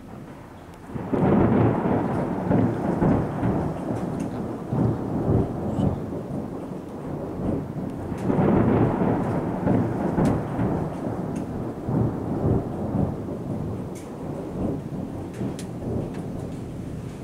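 Thunder rumbling. A loud peal starts about a second in and rolls on, swelling again about eight seconds in.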